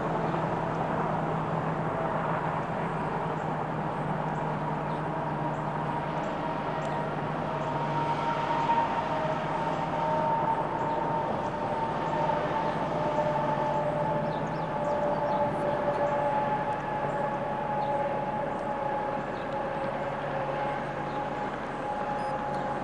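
A train rolling past, a steady rumble of wheels on rail with a low hum and two faint high tones that slide slowly down in pitch.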